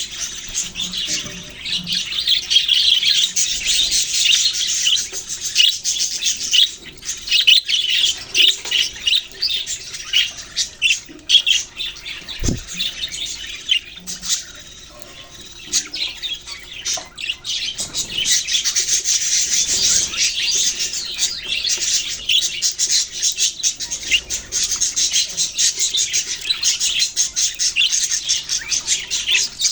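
Budgerigars chirping and chattering together in a fast, continuous high twitter. The twitter dips to a quieter lull about twelve to sixteen seconds in.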